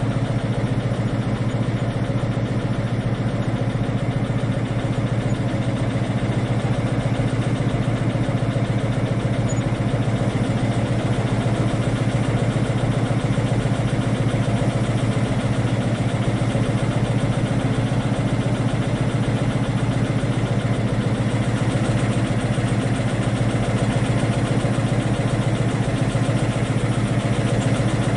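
Diesel train engine running at a steady speed, a low drone that holds the same pitch and level throughout.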